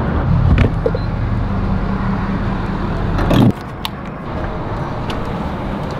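Refuelling at a gas pump: a click as the truck's fuel door is opened, over a steady low hum. About three and a half seconds in the hum cuts off suddenly, and a clunk follows as the pump nozzle goes into the filler neck.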